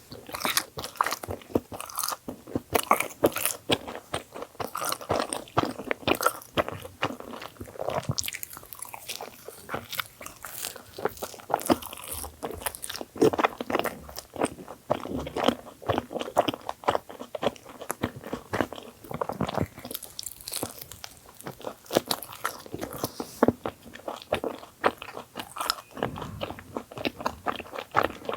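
Close-miked eating: biting into and chewing a thick sandwich bagel, with many crisp, irregular crunches and chewing sounds.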